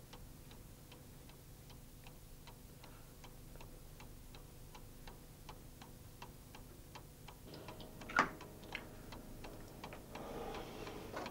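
Clock ticking steadily and faintly, with one louder brief sound about eight seconds in.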